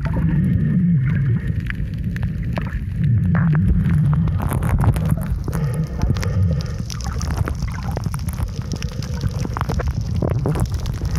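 Muffled underwater sound through a camera's waterproof housing: a steady low rumble of moving water with scattered crackling clicks. A faint steady high tone joins about six and a half seconds in.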